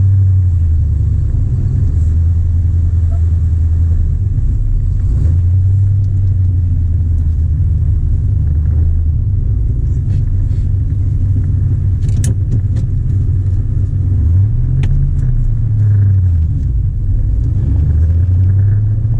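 Warmed-up 1979 Corvette L82 350 V8 heard from inside the cabin as the car pulls away and drives, its low rumble rising and falling with the revs. A few short sharp clicks come about twelve and fifteen seconds in.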